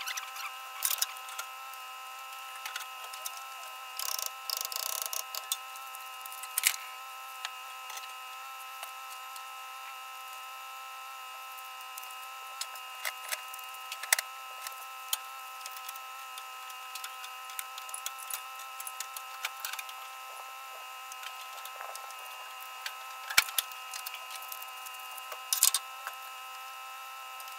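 Spanners clinking and scraping on the steel hydraulic hose fittings of a Yanmar B22 mini excavator's control valve block: scattered light clicks and knocks, a few sharper ones, over a steady high hum.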